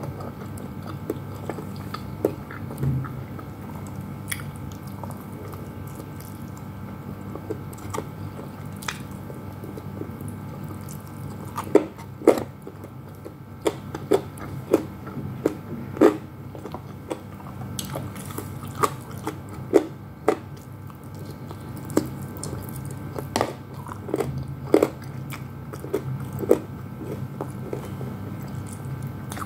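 Close-up chewing and biting of crispy breaded fried chicken, with sharp crunches that come more often in the second half, about one a second, over a steady low hum.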